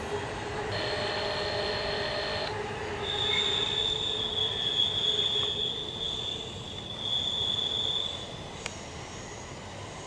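Steel wheels of a CSX intermodal container train squealing against the rail as the cars round a curve, over the rolling rumble of the cars. A brief squeal comes first. A louder, high, steady squeal starts about three seconds in and stops shortly before the end.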